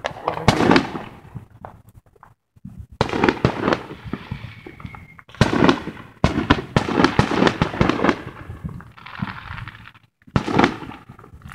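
Fireworks going off: clusters of rapid bangs and crackling, with brief lulls about two seconds in and again near the end.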